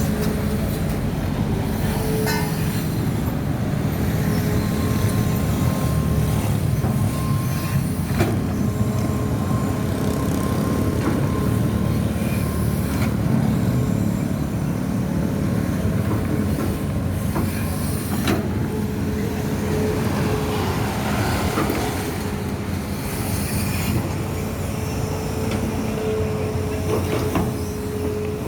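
Heavy diesel construction machinery running steadily, with a held metallic squeal over the engine and scattered clanks.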